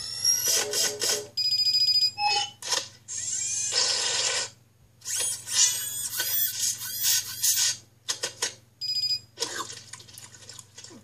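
A quick run of cartoon sound effects: held electronic beeping and ringing tones, hissing whooshes and a few sharp clicks, in short bursts broken by brief gaps.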